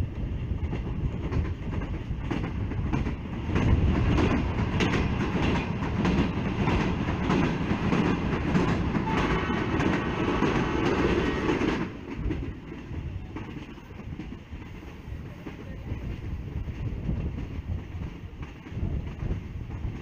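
Subak Kharam Express railcar train running on the rails, heard from an open coach window: a steady rumble with clickety-clack of the wheels. It swells much louder about three and a half seconds in as the train runs into a tunnel, and drops back about twelve seconds in as it comes out.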